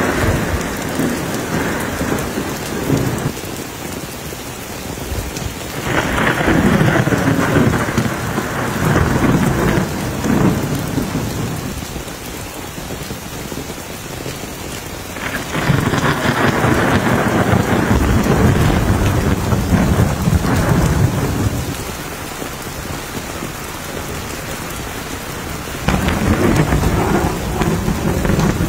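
Steady heavy rain pattering on a wet lane during a thunderstorm, with long rolls of thunder recurring about every ten seconds. Each roll lasts several seconds, and four are heard in all: the first is already under way at the start and fades out.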